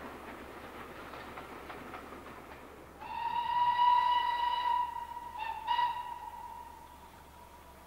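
Steam train running, then a steam locomotive's whistle about three seconds in: one long, steady, fairly high-pitched blast with two short toots near its end.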